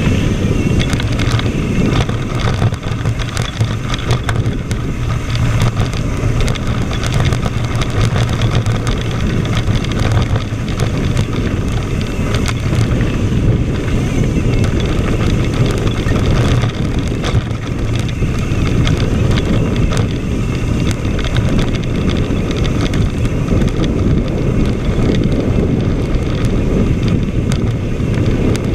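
Wind noise on an action camera's microphone during a fast mountain-bike descent of a dirt trail, a steady low rumble with constant small knocks and rattles from the tyres and bike over rough ground.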